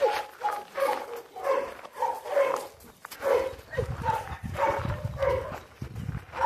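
A dog barking over and over, about two short barks a second.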